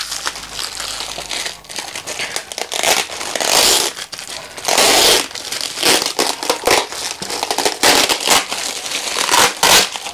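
Black plastic parcel wrapping crinkling and rustling as hands pull, fold and tear it open, in irregular bursts with louder patches around halfway and near the end.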